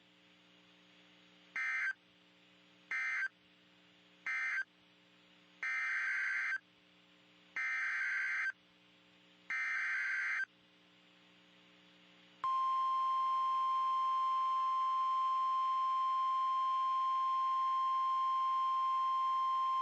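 NOAA Weather Radio EAS signalling: three short SAME data bursts marking the end of one warning, then three longer SAME header bursts announcing the next. Each burst is a harsh digital screech. About twelve seconds in, the steady 1050 Hz Warning Alarm Tone starts and holds.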